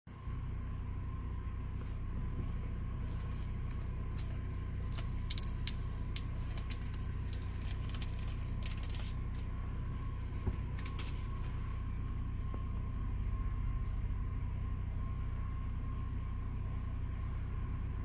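BMW X5 E53 engine idling steadily, heard from inside the cabin as a low hum, with a thin steady tone above it. Scattered light clicks between about 4 and 11 seconds in.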